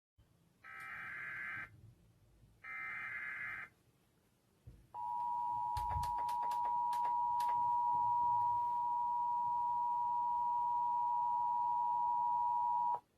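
Emergency Alert System test signals: two roughly one-second bursts of SAME digital header data, then, about five seconds in, the EAS attention signal, a steady two-tone alert tone (853 and 960 Hz) held for about eight seconds before cutting off. A few clicks and a low thump sound under the tone shortly after it starts.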